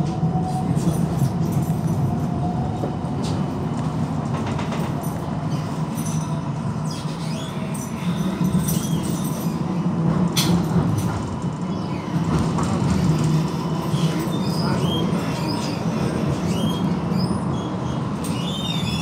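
GVB Amsterdam tram running along its tracks, heard from on board: a steady low rumble of wheels and running gear with a faint steady whine. In the second half, thin high wheel squeals come and go as it takes curving track.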